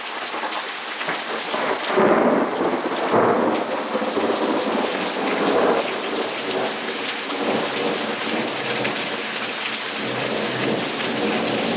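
Thunderstorm: steady rain falling, with a roll of thunder that breaks about two seconds in and rumbles on in waves for several seconds.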